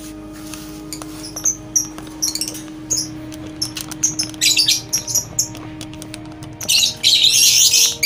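Lovebirds calling: short, shrill chirps and squawks, coming thicker after about four seconds, with a loud run of rapid chattering near the end.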